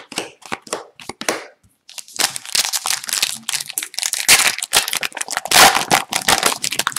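A few quick flicks of trading cards being leafed through by hand, then a foil hockey card pack torn open and its wrapper crinkled and crackled for the rest of the time.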